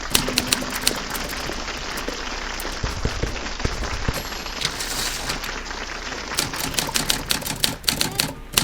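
Manual typewriter keys clacking in irregular runs, busiest near the start and again toward the end, over a steady background hiss. A few low thumps come about three to four seconds in.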